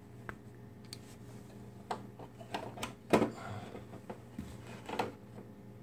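Scattered light clicks and knocks from a radio-controlled monster truck being handled and moved, about six in all, the loudest a little past halfway, over a low steady hum.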